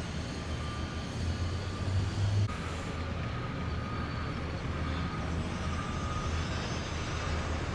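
Road traffic: a heavy vehicle's engine running, stronger for the first couple of seconds and then easing into a steady low traffic hum.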